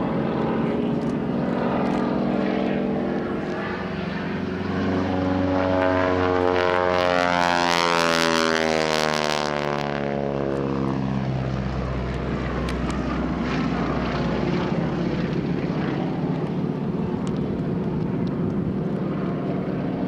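A North American Harvard's radial engine and propeller make a low pass. The pitch drops steeply as it goes by, with a harsh, rasping peak at its closest about eight to ten seconds in, then the steady drone of the engine further off.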